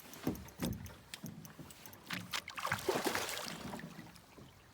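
Water splashing and knocking from a hooked chum salmon thrashing at the surface, with the busiest splashing about three seconds in.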